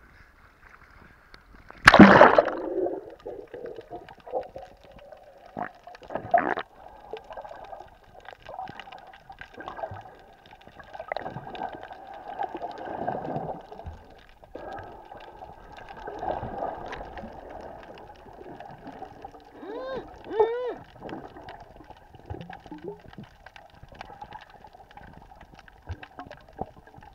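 Sea water heard from a camera at and below the surface: a loud splash about two seconds in, then muffled underwater sloshing and gurgling, with a few rising bubble tones about twenty seconds in.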